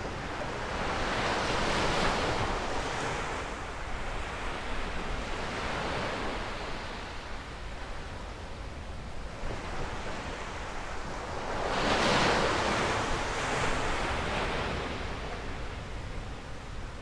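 North Sea surf breaking on a sandy beach, the wash swelling louder about two seconds in and again about twelve seconds in, with wind rumbling on the microphone.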